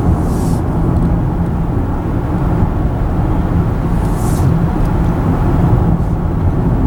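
Steady road noise of a car being driven, engine and tyre rumble heard from inside the car. Two brief hisses rise over it, one just after the start and one about four seconds in.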